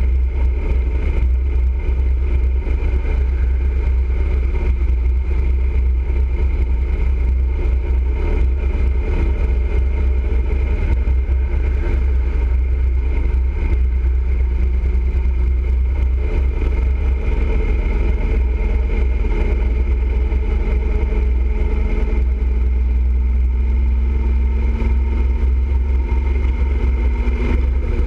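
Motorcycle riding at highway speed: a steady, loud low rumble of wind and road noise, with an engine hum that climbs a little in pitch in the last several seconds.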